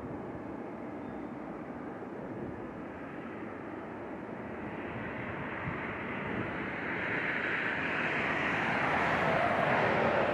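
Jet airliner's engines, a rushing noise that grows steadily louder over the last few seconds as the plane comes close, with its pitch sinking near the end as it passes.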